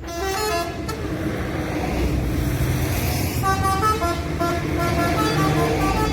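Telolet multi-tone bus air horn with six trumpets and 30 tones, playing a quick melody of stepping notes, several pitches sounding together.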